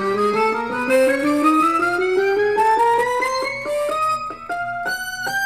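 Electronic accordion voice playing a quick rising chromatic run, about five short notes a second, over a held low note. Near the end the run slows into a few longer, brighter notes.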